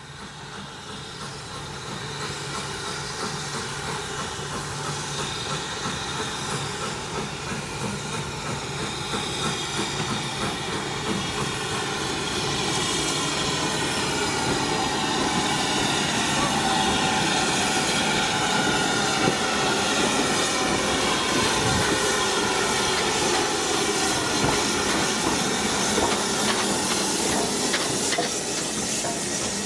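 Steam tank locomotive and its train drawing closer and passing, with a steady hiss of steam and wheels clicking over the rail joints. It grows louder through the first half, then holds.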